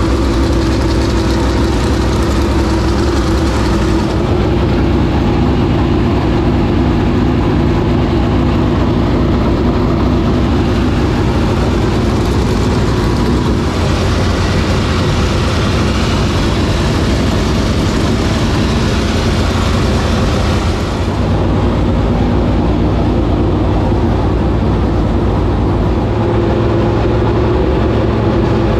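A 465 cubic inch V8 dirt late model race engine running loud and steady through its open long-tube headers.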